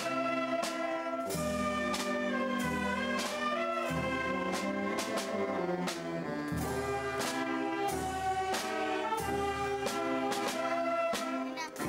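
Marching brass band playing a march: tuba, trumpets and trombones carry the tune over cymbal crashes and bass drum on a steady beat, about three strokes every two seconds.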